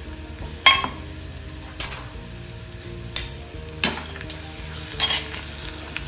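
A steel ladle scraping and knocking against a stainless steel kadhai, about five sharp clanks a second or so apart, as ground masala paste is stirred into hot oil and fried onions. Underneath is a soft frying sizzle.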